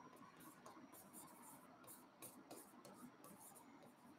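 Faint, irregular scratching and tapping of a pen writing on an interactive smartboard screen.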